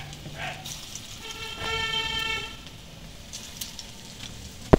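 A horn sounds one steady, pitched toot for about a second and a half, over the faint sizzle of fritters deep-frying in oil in a wok. A sharp click comes right at the end.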